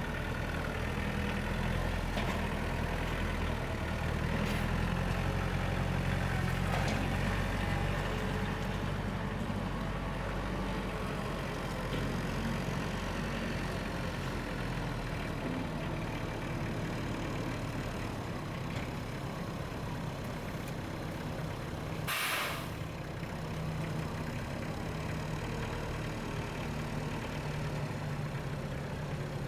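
Kubota L3600 tractor's diesel engine running steadily, with its note shifting a little partway through and a short hiss about two-thirds of the way in.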